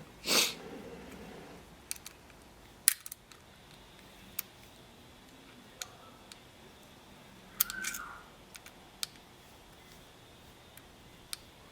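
Small metal clicks and taps scattered through a quiet room: an Allen key and small screws being worked on the optic plate of a pistol slide. A brief rustling scrape just after the start is the loudest, and eight or so sharp ticks follow at irregular gaps.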